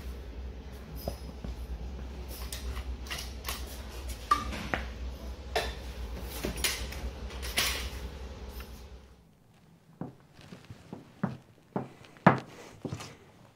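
Scattered clinks, clicks and knocks of objects being handled over a steady low hum. The hum cuts off about nine seconds in, leaving sharper, isolated knocks and clicks.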